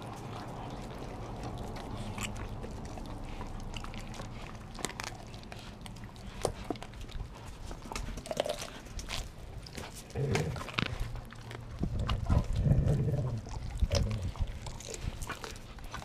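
Dogs biting, tearing and chewing at a raw whole chicken held in a hand, with many sharp cracks and wet tearing sounds. From about ten seconds in, louder low grunts come and go.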